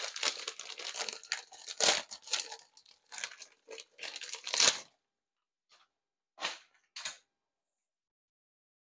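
Plastic bag and wrapping paper crinkling and tearing as a frozen pork butt is worked out of its packaging. Dense rustling for about five seconds, then three short crinkles.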